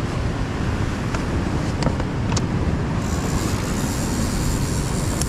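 Heavy wind rumbling on the microphone over pounding surf, with a few faint clicks as a backpack's straps and buckles are fastened.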